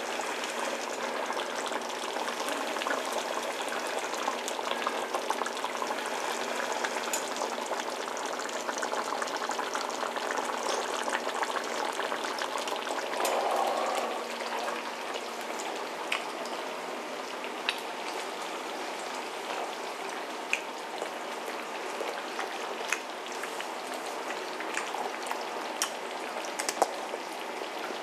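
Pot of thick chili bubbling on the stove, with a steady sizzling hiss and scattered sharp pops as bubbles burst and spit. The hiss drops a little after about halfway, while the pops go on.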